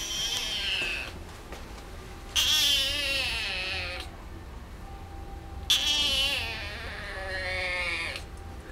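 A kitten meowing three times: a short falling call at the very start, then two long, strange-sounding meows with a wavering pitch, each lasting about one and a half to two seconds.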